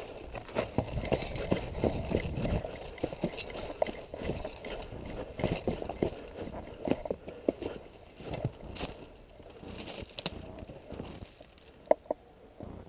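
Footsteps crunching and scuffing over snow-covered stones and rubble, with clothing and gear rustling close to the microphone. A single sharp click comes near the end.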